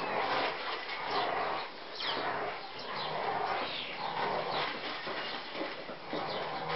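Four-week-old puppies whimpering and yipping over and over as they play.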